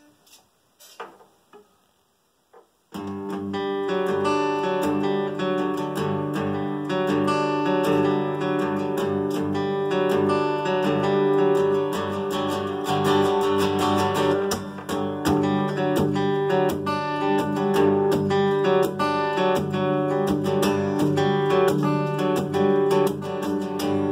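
Steel-string acoustic guitar strummed in a steady rhythm of ringing chords, the instrumental intro of a song. It comes in about three seconds in, after a few faint clicks.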